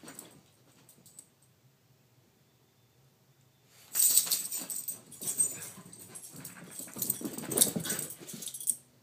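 Two small dogs play-fighting: after a few quiet seconds, a loud stretch of play growls and scuffling, about five seconds long, that stops suddenly.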